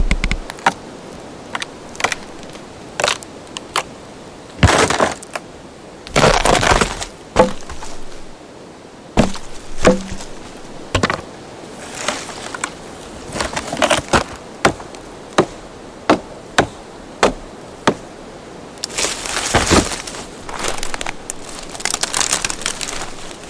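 Wood sound effects: a string of short, sharp cracks and snaps of breaking wood, coming about once a second, with several longer splintering, crunching crashes in between. A steady background ambience runs underneath.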